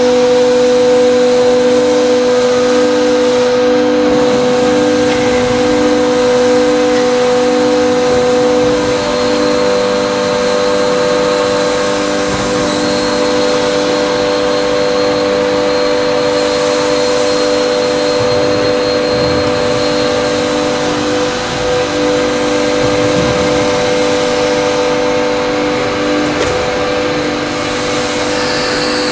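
Hydraulic power unit and roll drives of a CNC four-roll plate bending machine running with a steady whine, while the hydraulic side supports raise under program control. A softer pulsing throb runs underneath through the first several seconds.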